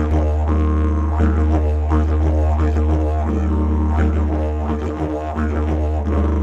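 Didgeridoo playing a continuous deep drone, its overtones shifting in a steady rhythmic pulse of a few changes per second.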